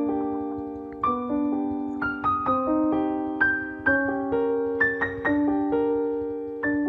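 Piano music: a slow melody of single struck notes over held chords, each note fading after it is played.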